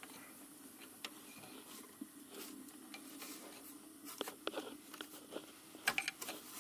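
Faint metallic clicks and scrapes of a small screwdriver prying a brake line out of its channel on a brake caliper, with a cluster of sharper clicks about four seconds in and again near the end.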